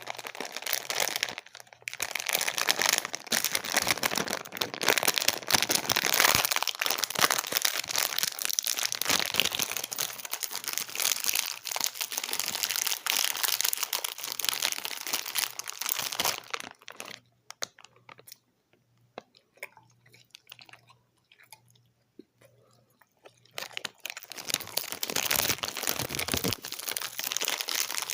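Close-miked chewing of colourful Fini gummy candies: dense, wet crackling mouth sounds that die down to a few faint clicks for several seconds past the middle, then pick up again near the end.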